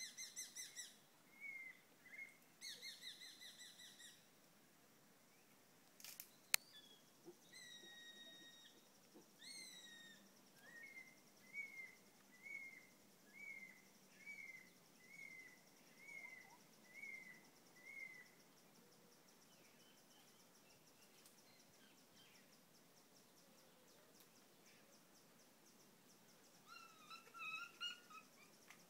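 Birds calling: faint high chirps and short trills, then a run of about ten repeated notes just under a second apart, with a faint high steady buzz behind them.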